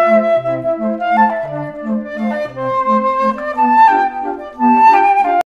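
Background music: a woodwind melody of held notes over short, bouncing bass notes.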